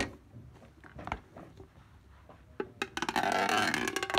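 A few light knocks as a shrink-wrapped metal card tin is handled, then about a second of loud plastic crackling near the end as a knife blade cuts into the shrink wrap.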